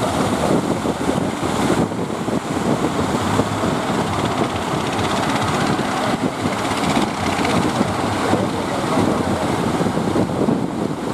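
Steady, loud rush of breaking surf with wind buffeting the microphone.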